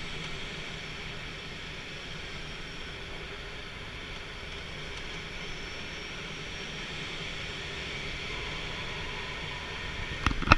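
Steady rushing airflow noise in a glider's cockpit during free flight. A few loud knocks come near the end.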